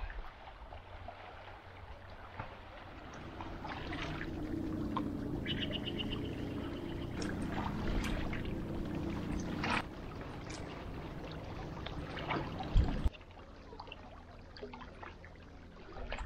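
Outdoor ambience with a faint engine hum that swells and fades over several seconds, and a short bird trill about five seconds in. The sound drops abruptly to a quieter background about thirteen seconds in.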